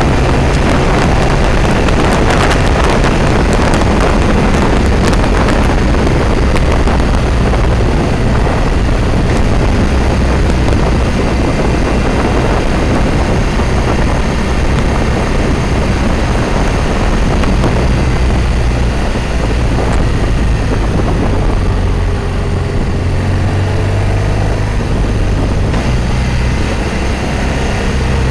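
Motorcycle engine running steadily at road speed under heavy wind rush on the microphone, with gusty crackle strongest in the first several seconds.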